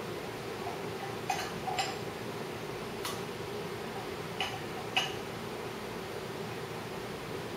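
Open-end wrench clicking against the hex of a cam bearing installer tool's threaded shaft as it is turned in short strokes: five short metallic clicks within the first five seconds, over a steady hum.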